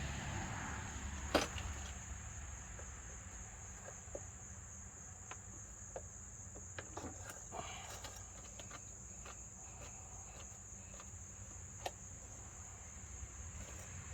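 Insects trilling as one steady high-pitched drone, with a faint low hum underneath and a few scattered sharp clicks, the loudest about a second and a half in and near twelve seconds.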